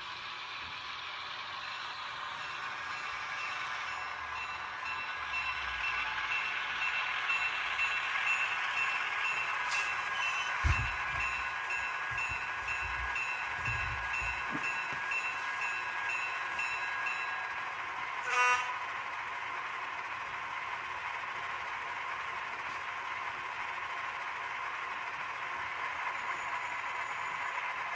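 ESU LokSound V5 micro sound decoder in an N scale Kato E5A model locomotive, playing an EMD dual 567 prime-mover sound through a tiny sugar-cube speaker as the model runs; a steady, thin diesel engine drone. A brief loud blip comes about two-thirds of the way through.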